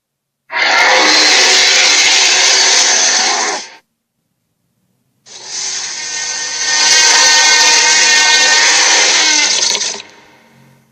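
Cartoon sea monster sound effect: two long, loud, noisy roars separated by a gap of about a second and a half, the second longer and with a pitched edge.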